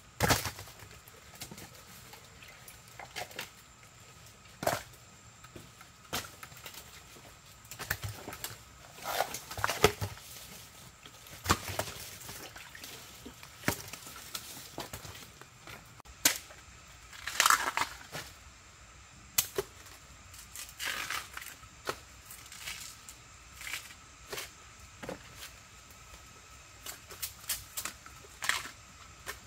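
Irregular sharp clicks and taps mixed with short rustling bursts, scattered unevenly, with no steady sound beneath.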